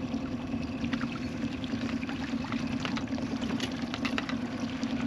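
Boat motor running steadily at trolling speed, with several short splashes and drips of water as a small hooked walleye is brought up at the side of the boat.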